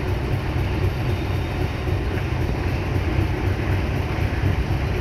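Sri Lanka Railways M11 diesel locomotive hauling a passenger train out of the yard: a steady low rumble of engine and wheels on the rails as the train pulls away.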